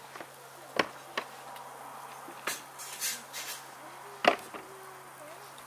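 Scattered sharp clinks and knocks, the loudest about four seconds in, with short bursts of hiss between them.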